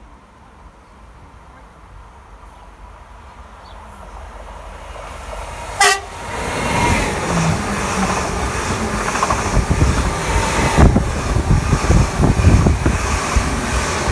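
Greater Anglia Stadler FLIRT multiple unit approaching and passing at speed. It gives one short horn toot about six seconds in, then runs by loud and close with a heavy rumble of wheels on rail, after a faint, steadily growing approach.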